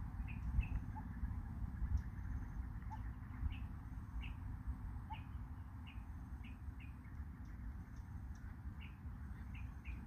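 A bird calling in short, high chirps, repeated irregularly about once or twice a second, over a steady low rumble.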